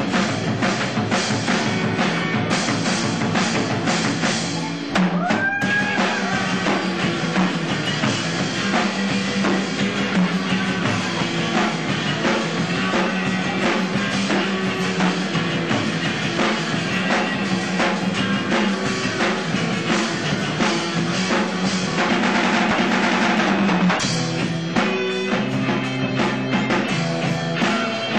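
Live rock band playing, with a full drum kit driving the beat, and a short dip and abrupt cut in the sound about five seconds in.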